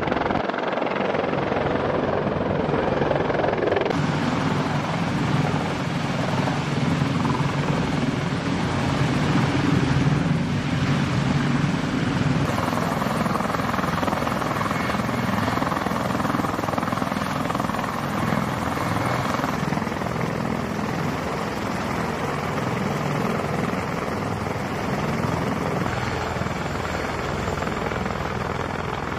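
CH-53E Super Stallion heavy-lift helicopter running steadily: the rotor and turbine engines make a continuous loud rumble and hiss. The sound changes abruptly twice, about four seconds in and again about twelve seconds in.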